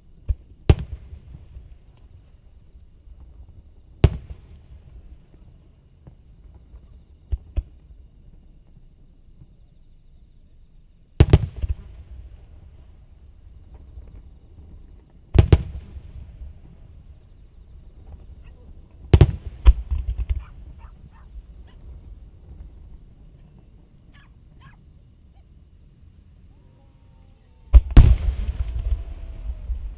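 Aerial firework shells bursting about 800 m away: single sharp booms every few seconds, some in quick pairs, with a brief crackle after one burst. The loudest boom comes near the end and is followed by a rumbling crackle. Insects trill steadily and high throughout.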